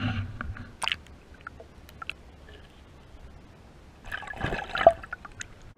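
Lake water sloshing and splashing as a largemouth bass is released, heard muffled through a camera held under the surface. There are scattered small clicks, and a louder burst of splashing comes about four seconds in.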